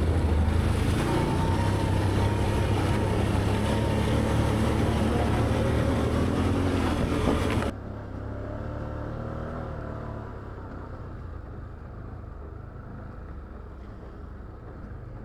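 Can-Am Outlander ATV's V-twin engine running steadily under way on the trail, with noise of the ride over it. About seven and a half seconds in, the sound suddenly drops and turns quieter and duller, the hiss cut off, and the engine carries on more softly.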